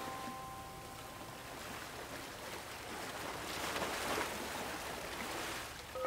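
Ocean waves washing against the shore, one wave swelling to a peak about four seconds in. A few held chime notes ring out and fade in the first second and a half.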